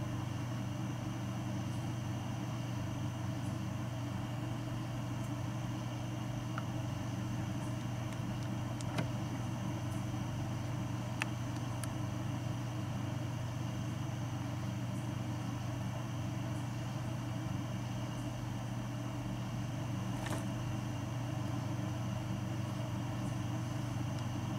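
Steady low machine hum that does not change, with a few faint ticks scattered through it.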